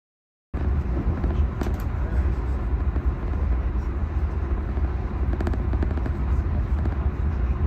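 Steady low rumble of a moving passenger train heard from inside the carriage, with a few light rattles. It cuts in abruptly about half a second in.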